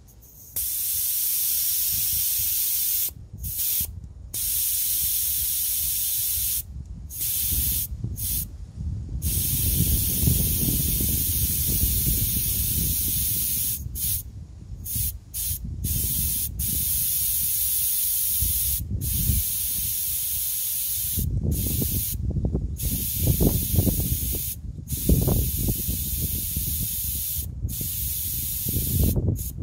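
Air hissing out of a car tire's valve stem as a thin rod holds the valve core down, deflating the tire. The steady hiss cuts out briefly about a dozen times when the rod is eased off, with a low rumble underneath.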